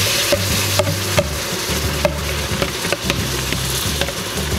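Softened chopped bell peppers, celery and onion sizzling as they are tipped into hot roux in an Instant Pot on its sauté setting, with scattered light clicks over the steady hiss.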